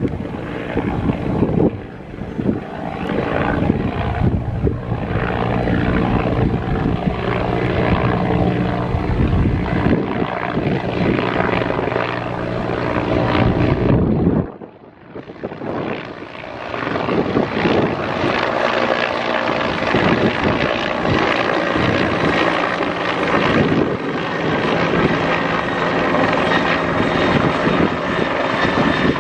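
Airliner engines running loud and steady close by, with several steady engine tones over a broad rush of noise. About halfway through the sound drops out suddenly for a moment, then comes back just as loud.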